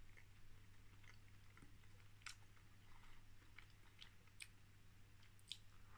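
A man chewing a mouthful of soft white-bread sandwich, faint, with small wet mouth clicks scattered through it.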